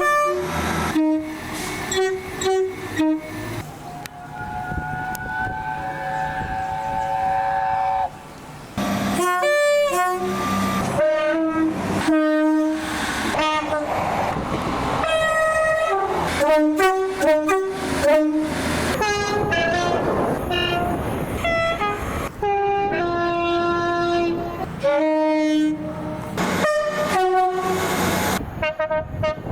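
Train air horns sounding one after another in a run of edited clips: mostly short blasts with a few held ones, each sounding several notes at once. One long steady chord lasts about four seconds near the start, and the clips change with abrupt cuts.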